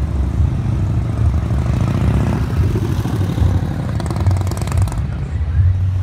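Motorcycle engines running with a loud, steady low pulsing exhaust note.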